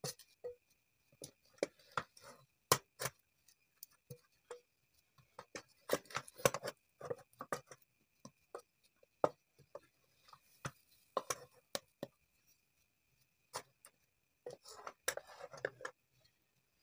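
Wooden spatula stirring and turning thick fufu dough in a metal pot: irregular knocks and clacks against the pot, coming in flurries with short pauses.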